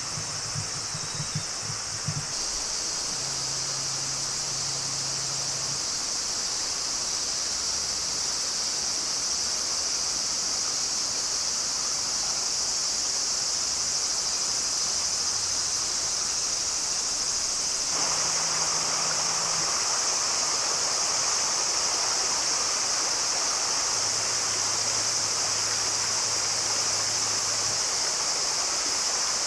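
Steady high-pitched chorus of autumn insects such as crickets, over an even low hiss. It steps up slightly at about two seconds and again about 18 seconds in.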